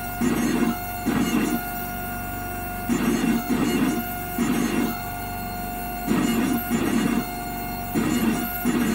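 Sirona MC XL dental milling unit milling a ceramic bar with two water-cooled burs. A steady motor whine runs throughout, and louder rasping bursts of about half a second come in irregular groups as the burs cut.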